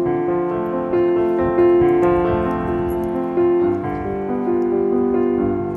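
Background music played on a keyboard: a melody of held notes that change every fraction of a second.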